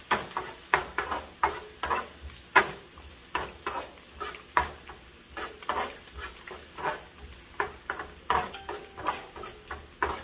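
A metal spoon clinking and scraping against a nonstick frying pan in quick irregular strokes, about three a second, while diced onion sizzles in hot oil underneath.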